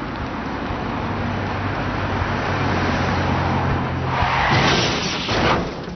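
A car running: steady engine hum and road noise that slowly builds. A louder, harsh burst of noise comes about four to five and a half seconds in, then the sound falls away.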